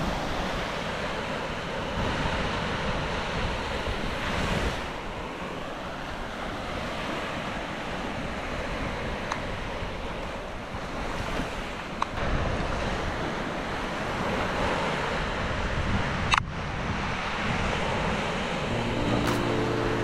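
Surf breaking and washing onto a sandy beach, with wind rumbling on the microphone.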